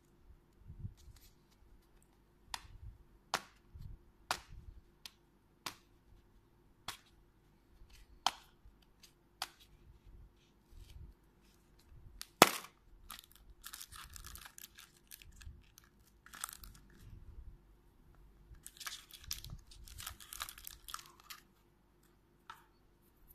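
Hard clear-plastic surprise-egg capsule being worked open by hand: a series of sharp plastic clicks and snaps, the loudest about halfway through, followed by bouts of plastic crinkling as the contents are handled.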